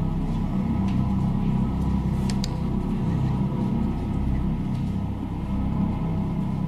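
A steady low drone from the film's background score, with a couple of light clicks a little after two seconds in.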